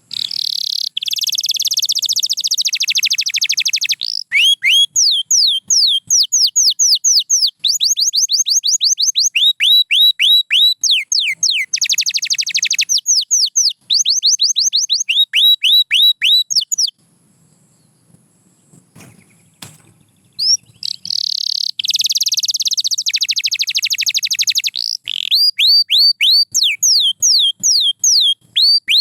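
White canary singing: fast, dense trills alternating with runs of high, downward-sliding whistled notes. It breaks off for a few seconds a little past the middle, then starts again.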